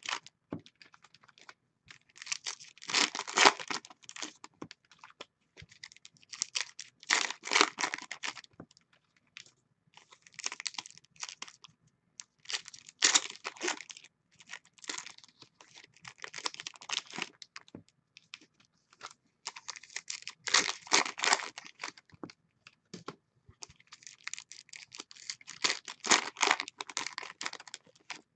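Foil wrappers of 2016 Donruss football card packs being torn open and crinkled, in crackly bursts of a second or two every few seconds, with light clicks of cards being handled in between.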